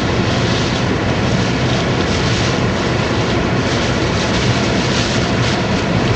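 Hurricane wind and rain making a loud, steady rush with gusts swelling every second or so, over the low hum of the vehicle carrying the camera.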